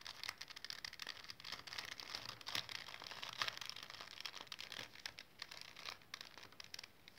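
Plastic 3x3 Rubik's cube being turned by hand through a sequence of moves, its layers clicking and rattling in quick irregular runs that thin out near the end.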